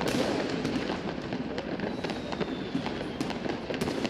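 New Year's Eve fireworks and firecrackers going off: many sharp bangs and cracks in quick succession over a dense, steady din, with a faint, slightly falling whistle about halfway through.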